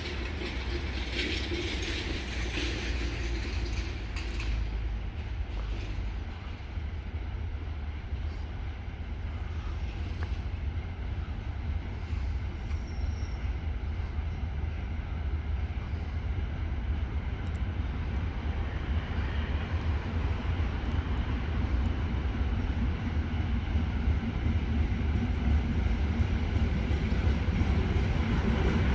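A freight train hauled by a ChME3 diesel-electric shunting locomotive approaching on the track: a steady low engine rumble growing slowly louder.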